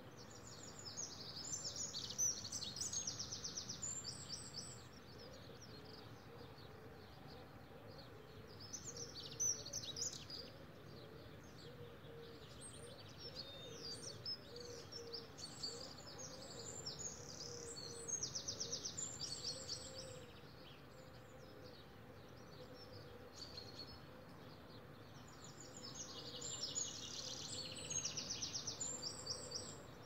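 Dawn chorus of songbirds: four bursts of high, rapid twittering song spaced several seconds apart, over a faint steady background hum.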